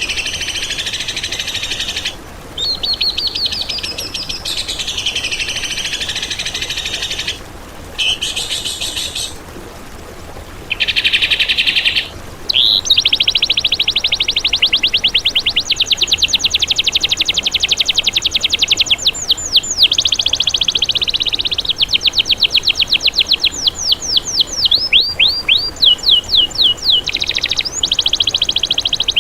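Loud, high songbird song: warbled phrases, then long runs of rapid repeated notes and fast trills, with quick downward-sweeping notes near the end. Phrases start and stop abruptly, as in spliced recordings.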